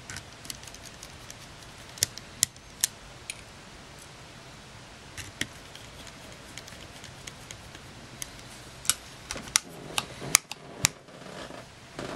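Sharp little clicks and taps of a precision screwdriver and small plastic and metal parts on a Canon PowerShot SX130 compact camera body being worked by hand, scattered through, with a quicker run of louder clicks near the end.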